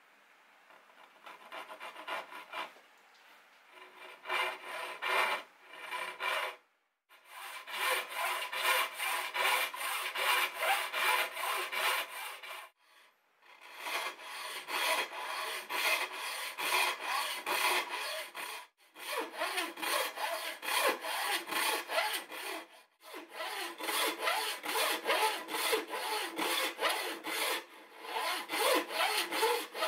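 Handsaw cutting dovetails into the end grain of a Taiwan cypress board: a quick, even rasp of back-and-forth strokes. The strokes are light for the first few seconds as the kerf is started, then run hard, with short pauses as the saw moves from one marked line to the next.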